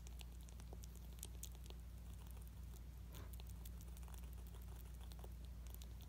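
Baby squirrel nibbling a bit of food held in its paws: many faint, quick, irregular clicks of gnawing, over a low steady hum.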